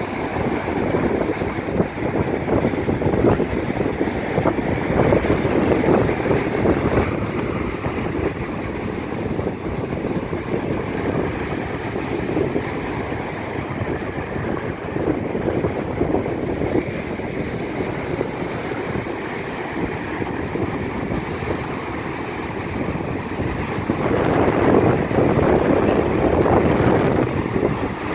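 Strong, gusty wind buffeting the microphone, over the sound of surf on the beach. The gusts swell louder a few seconds in and again near the end.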